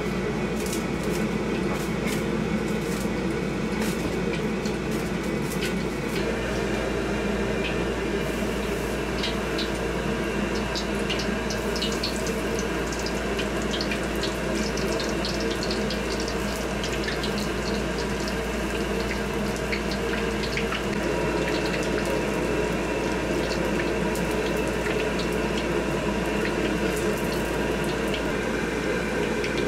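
Whole batter-coated eggplants deep-frying in a wok of hot oil, with a constant sizzle and crackles that grow thicker after the first several seconds. Under it runs the steady drone of the gas wok burner.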